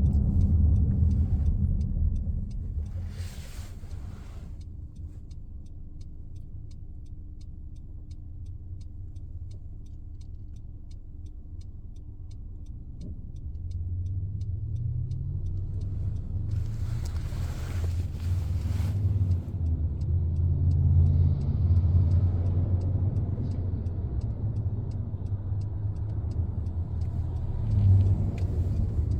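2015 Honda CR-V Touring driving with a low humming drone, the loud hum the owner hears coming from the back of the car. It fades a couple of seconds in, then swells back louder about halfway through. Two brief rushing noises come early on and again past the middle.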